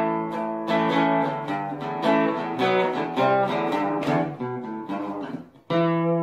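Outro music: guitar strumming chords, about one a second, then a last chord struck near the end that rings on.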